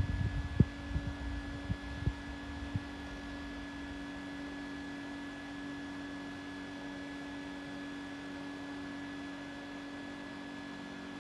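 Small handheld fan: a rush of air on the microphone fades away with a few light clicks in the first three seconds, then the motor runs on with a steady hum at one fixed pitch.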